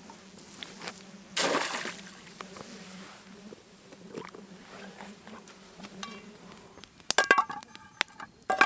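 A short splash of water about a second and a half in, then near the end a quick run of sharp metal clinks with a brief ringing, as of camp cookware being handled.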